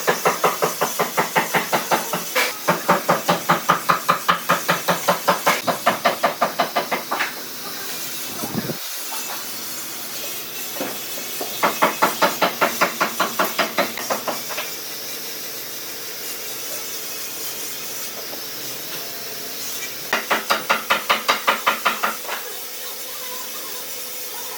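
A hand tool worked back and forth on wood in quick, even strokes, about four or five a second, in three runs: a long one at the start, a shorter one around the middle, and a brief one near the end.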